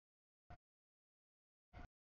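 Passing freight train heard only as brief blips a fraction of a second long, each carrying a steady tone, with dead silence between them as the audio feed drops in and out.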